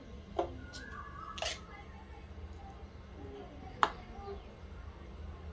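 A metal spoon clicking against an aluminium kadai a few times, the loudest click a little before the end, while a lump of ghee melts over a low gas flame. A steady low hum runs underneath.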